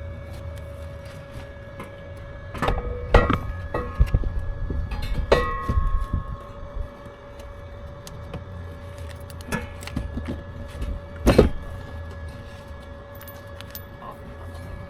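Metal parts and hand tools clanking and knocking several times, some knocks ringing briefly, over a steady low hum.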